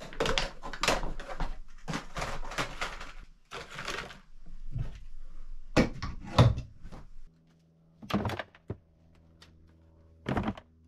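Hand tools and small items being set down and shuffled on wooden shelves: a busy run of knocks, clunks and clatter, thinning out after about seven seconds to a few separate thumps.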